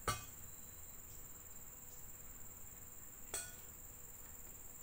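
Two sharp metallic clinks with a short ring, the louder one right at the start and another a little past three seconds in: a stainless steel bowl of fried fish being handled and set down. Behind them, a steady high-pitched insect chirring.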